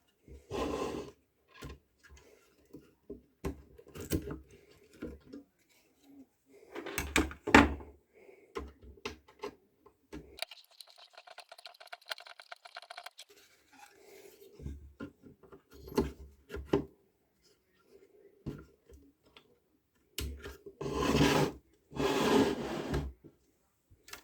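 Intermittent rubbing and scraping strokes of hand work. A short buzzing whine sounds for a few seconds near the middle.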